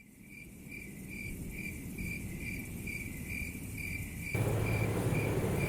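Cricket chirping steadily, about two evenly spaced chirps a second. A low rumbling noise joins in about four seconds in.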